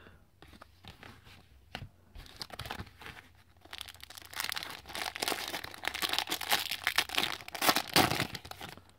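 A foil trading card pack wrapper being handled and torn open by hand: a few light crinkles and clicks at first, then dense crinkling and tearing from about four seconds in, loudest near the end.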